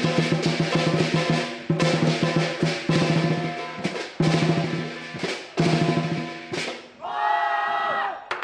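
Southern lion dance percussion: a large lion drum beaten in fast rolls with ringing cymbals and gong, the rolls breaking off and restarting about every second and a half. Near the end the beating stops for a long held shout.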